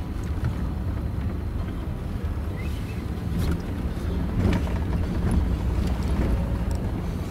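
Pickup truck driving slowly over a muddy, rutted dirt track, heard from inside the cab: a steady low engine and tyre rumble, with a few short knocks from the body and suspension.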